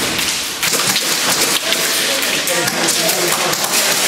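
Airsoft guns firing in a rapid, irregular patter of sharp cracks and BB impacts.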